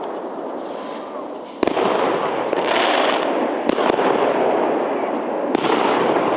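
Fireworks going off in a dense, continuous crackle of many overlapping bangs. It gets louder about a second and a half in, and a few sharper single bangs stand out above it.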